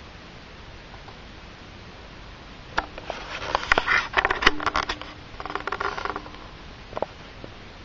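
Handling noise: a cluster of sharp clicks and rustling starts about three seconds in and lasts about three seconds, over a steady hiss, with one more click near the end.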